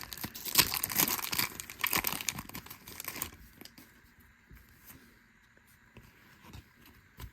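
A baseball card pack wrapper being torn open and crinkled for about three seconds, then a few faint ticks of handling.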